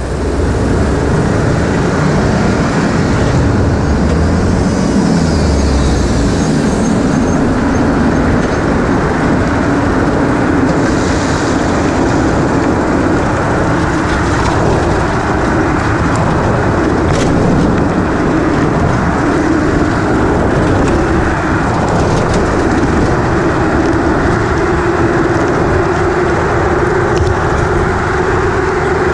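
Steady engine and road noise of a moving bus, a continuous rumble with a rough engine hum that edges slightly higher in pitch in the second half.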